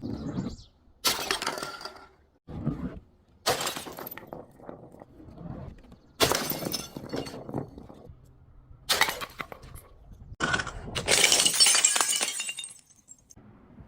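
Glass bottles breaking and crunching: a series of about seven separate smashes, each trailing off in a brittle crackle of shards, the longest and loudest near the end.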